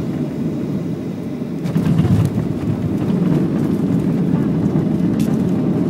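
Cabin noise of a Boeing 737-700 landing: a steady low rumble, with a jolt about two seconds in as the main wheels touch down. After it the rumble stays louder as the jet rolls out on the runway with its ground spoilers up.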